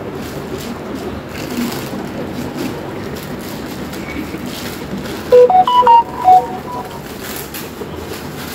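Cardboard box and plastic-bagged packing being handled against a steady room background. About five seconds in comes a loud run of clear notes, a short melody stepping up and down in pitch for about a second.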